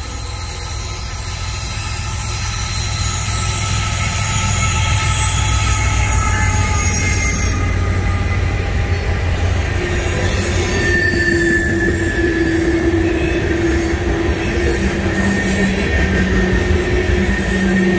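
Norfolk Southern diesel-hauled freight train passing at close range: a deep locomotive rumble grows louder over the first few seconds, then oil tank cars roll by with rail noise and steady wheel squeal tones from about ten seconds in.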